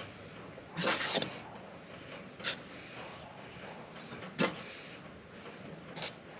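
A fork clinking and scraping against a stainless steel mixing bowl as biscuit-mix dough is stirred: a longer run of scrapes about a second in, then three single sharp clinks a couple of seconds apart.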